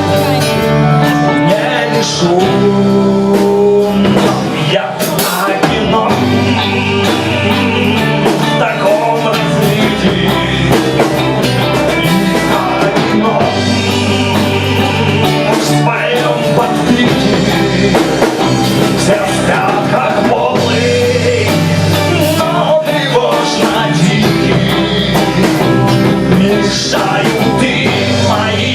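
Rock band playing live: electric guitar, bass and drum kit, with singing.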